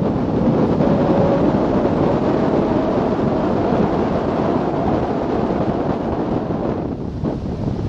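Mitsubishi Pajero driving, its engine and road noise mixed with wind buffeting the microphone. Steady throughout, with a faint whine held through the middle.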